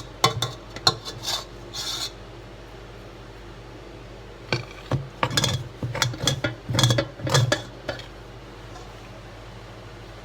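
A utensil scraping and stirring in a cooking pot, in quick rasping strokes. One spell runs for about the first two seconds and a second from about four and a half to eight seconds.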